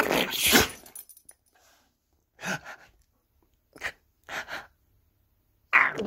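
Exaggerated fake human sneezes made at a dog, several breathy bursts in a row, the loudest one at the start and another starting near the end.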